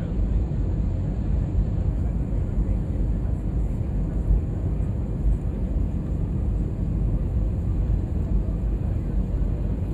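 Steady low cabin noise of a jet airliner on final approach, heard from a window seat: the engines and the airflow over the fuselage make an even rumble, heaviest in the low end, that does not change.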